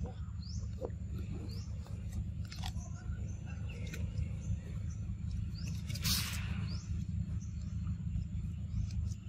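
Short, high, rising animal chirps every few seconds over a steady low rumble, with a brief loud hiss about six seconds in.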